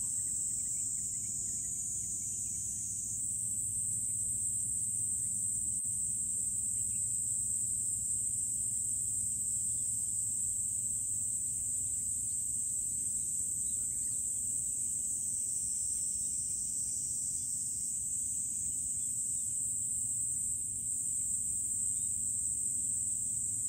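A steady, high-pitched chorus of insects shrilling without pause, stepping slightly higher in pitch a few seconds in. A low steady rumble runs underneath.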